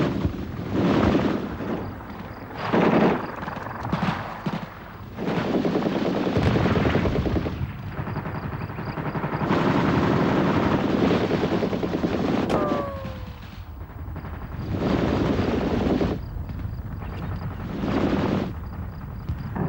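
Repeated bursts of automatic gunfire, some brief and some lasting two to three seconds, with pauses between them. A short falling whine comes about twelve and a half seconds in.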